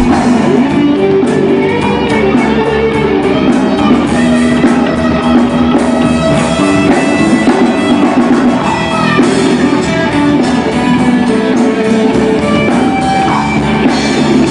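Rock music with electric guitar and a drum kit playing continuously.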